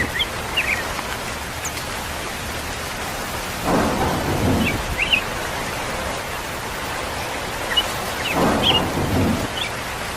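Thunderstorm sound effect: steady rain with two low rolls of thunder, one about four seconds in and one near the end, and a few faint short chirps over it.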